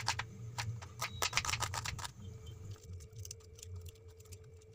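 Kitchen knife slicing onion against a wooden cutting board: a quick run of taps, about five a second, for the first two seconds, then fewer, lighter clicks.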